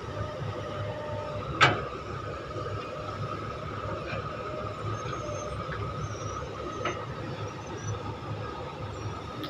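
Kobelco SK200 hydraulic excavator running under load as it digs soil for a dump truck: a steady engine rumble with a steady hydraulic whine. A single sharp metallic clank about a second and a half in, with two fainter knocks later.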